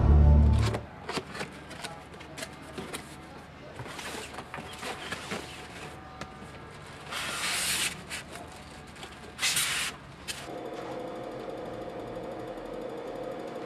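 Cardboard box and plastic wrapping being handled: scattered clicks and knocks, with two short bursts of crinkling plastic. From about ten seconds in, a steady buzz sets in.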